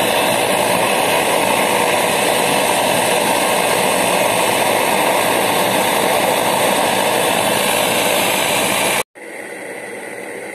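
Optimus 111B pressure stove's roarer burner running at full flame: a loud, steady roar. About nine seconds in it cuts off abruptly to a quieter, steady rush of the burner under a kettle.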